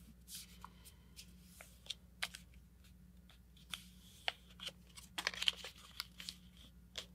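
A sheet of paper being creased by hand along a paper airplane's wing fold: faint scattered crinkles and rustles, busiest a little past halfway.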